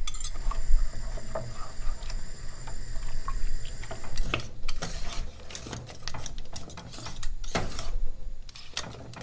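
A whisk stirring thick milk custard in an enamel pot as it cooks: repeated scraping and clicking against the pot, busier from about four seconds in.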